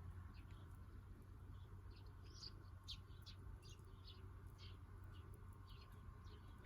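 Faint small birds chirping, short high calls repeated throughout, over a low steady hum.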